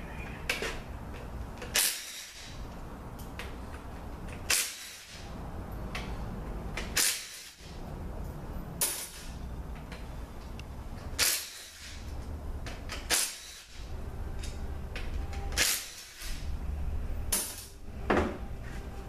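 About nine sharp, short knocks or taps, roughly one every two seconds, over a steady low hum, as parts are worked on at a transmission case on a steel bench.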